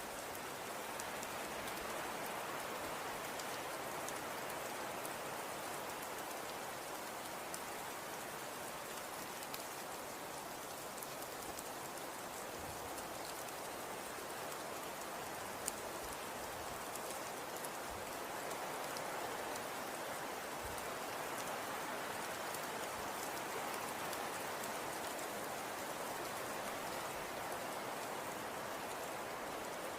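Wind and blowing snow: a steady even hiss that swells gently now and then, with scattered faint ticks.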